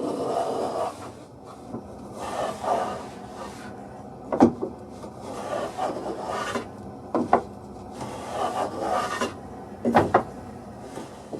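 Wood being rubbed by hand with an abrasive: a few slow, rough strokes of about a second each, with sharp wooden knocks in between, two of them in quick pairs.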